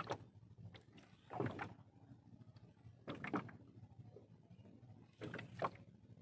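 Water slapping against the hull of a small boat, in four short splashy bursts about every one and a half to two seconds.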